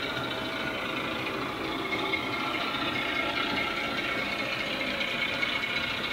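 Bachmann Class 08 shunter model's Legomanbiffo DCC sound decoder playing a diesel engine running sound through the model's small on-board speaker, with a light rattle as the model runs along the track.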